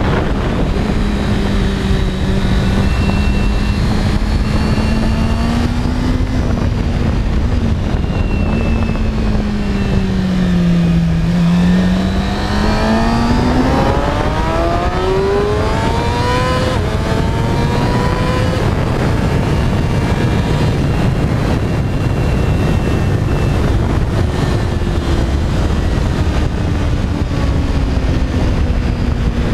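Motorcycle engine running at speed on a race track, under heavy wind rush on the microphone. About ten seconds in, the engine note sinks as the bike slows, then climbs steeply as it accelerates away again.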